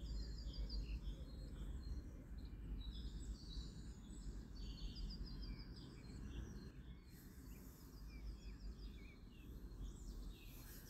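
Small songbirds chirping and singing, with several quick trills of rapidly repeated high notes, over a steady low rumble of outdoor background noise.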